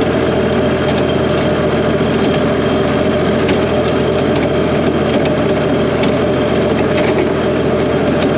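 Engine running steadily at an even speed, with a few faint clicks over it.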